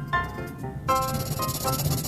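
Background instrumental music: a light melody of short pitched notes over a low pulse, with a shaker-like hiss coming in about a second in.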